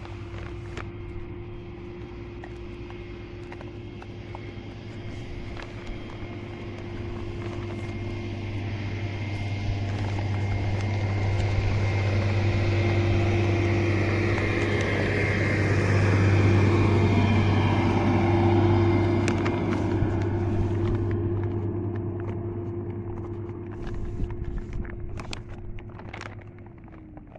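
Motor vehicle engine running with a steady hum, growing louder toward the middle and fading again near the end.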